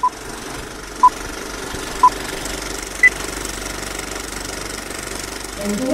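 Old film projector clattering steadily, with countdown-leader beeps: three short beeps a second apart, then a higher-pitched beep about a second later.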